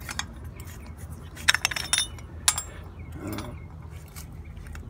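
Brass union fittings of an old water pressure regulator clinking and clicking as they are unscrewed by hand and the regulator is worked off the copper line. A few sharp metallic clicks, the loudest in a cluster about a second and a half in and one more at about two and a half seconds.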